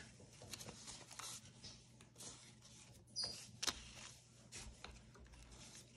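Faint rustling and light clicks of paper banknotes and cash envelopes being handled, with a couple of louder taps a little after three seconds in, over a low steady hum.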